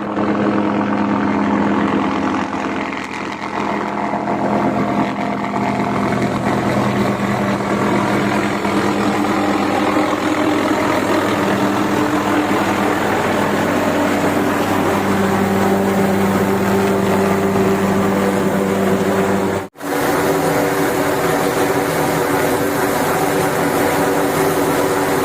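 Helicopter turbine engine and rotor running steadily, a loud machine drone with a steady whine. About 20 seconds in the sound cuts out for a moment and resumes with slightly changed pitches, as at an edit.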